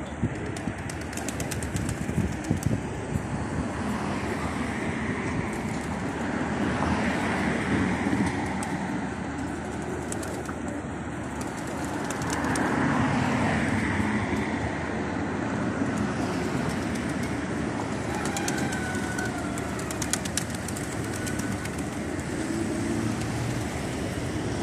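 A large flock of feral pigeons cooing as they feed, with scattered light clicks, over a steady bed of street traffic noise.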